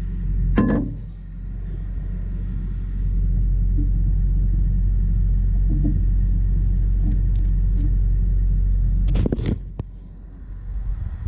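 A low, steady engine rumble that grows louder about three seconds in, then drops away after a cluster of sharp knocks near the end.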